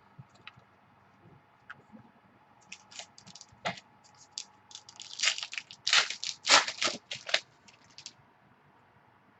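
Trading cards and their packaging being handled: a run of irregular sharp crackles and crunches, densest and loudest about six to seven seconds in.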